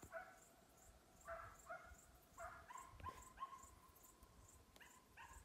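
Faint barking of a hunting hound on a hare hunt: short yelps in pairs, with one longer drawn-out cry a little after the middle. A cricket chirps steadily in the background.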